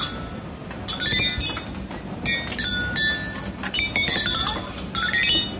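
A wall-mounted play-panel xylophone of coloured tubes struck with a stick, giving quick runs of ringing notes. The runs are swept along the bars, stepping down and then up the scale, several times.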